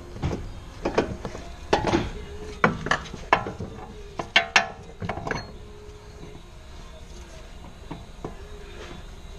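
Hand tools and metal parts being handled: a quick, irregular run of clicks and knocks in the first five seconds or so, then only a few faint ticks.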